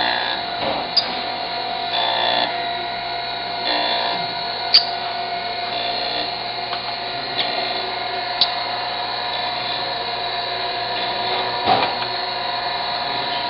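Chevalier 6" x 18" manual surface grinder running, its abrasive wheel grinding a metal block with a steady whine and hiss. A few short sharp clicks sound over it.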